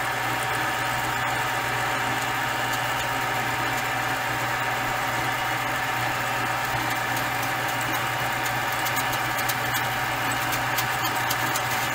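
Small metal lathe running steadily while a 4 mm twist drill in the tailstock chuck bores into the spinning aluminium stock, a constant motor hum and whine with a few faint ticks near the end.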